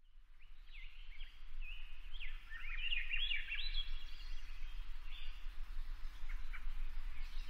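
Several birds chirping and singing, with short whistles and quick gliding notes overlapping, fading in at the start and busiest a few seconds in, over a steady low hum.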